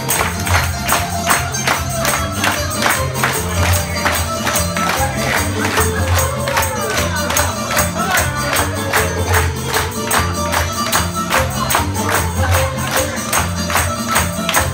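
Loud upbeat Greek bouzouki-style music with a woman singing into a microphone, over a heavy bass beat. Diners clap along in a steady rhythm of about three claps a second.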